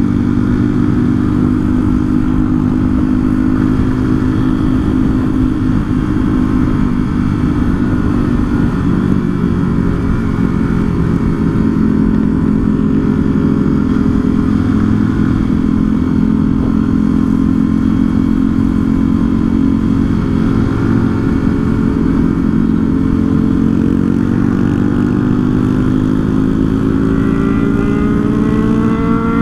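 Motorcycle engine running steadily at cruising speed, with low wind rumble on the bike-mounted microphone. Near the end the engine pitch rises as the bike accelerates.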